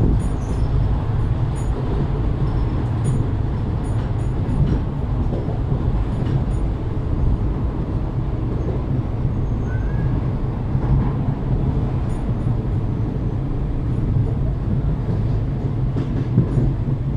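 Passenger train coach running along the track, heard from aboard: a steady low rumble of wheels on rails, with scattered faint sharp clicks.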